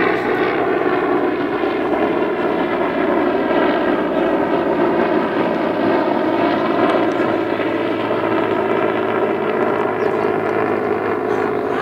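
Military aircraft flying overhead, its engine a loud, steady drone that holds one pitch.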